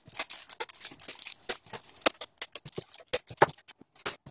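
A pack of green 18650 lithium-ion cells is pulled by hand out of a laptop battery's black plastic case, making dense irregular plastic clicks, rattles and rustles that thin out near the end.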